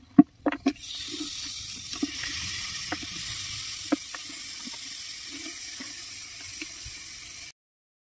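Pieces of goat-head meat tipped into a pot of hot oil and fried ginger-garlic paste: a few knocks as they drop in, then a steady sizzle of frying from about a second in. The sizzle cuts off suddenly near the end.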